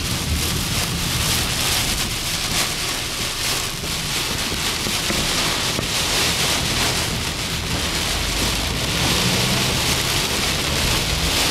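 Heavy rain pounding steadily on a car's windshield and roof, heard from inside the moving car, with the car's low running rumble underneath.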